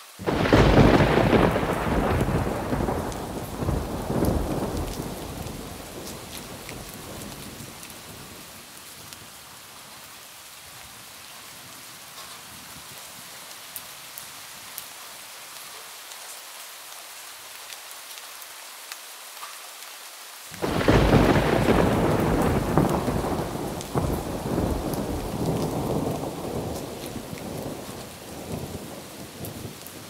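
Steady rain with two long rolls of thunder. The first rumbles from the start and fades over several seconds. The second breaks in suddenly about twenty seconds in and dies away slowly.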